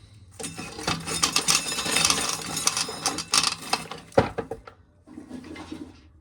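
Dry corn being shelled off the cob: a dense rattle of kernels clicking and clattering, with a sharp knock about four seconds in and a softer rattle near the end.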